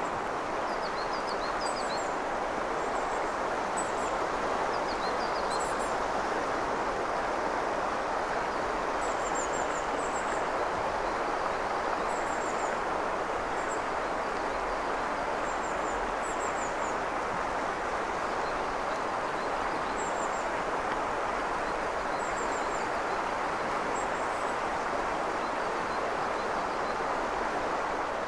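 Steady rush of a shallow mountain river flowing over its stony bed. Small birds give short, high chirps, often in quick little runs, every second or two through much of it.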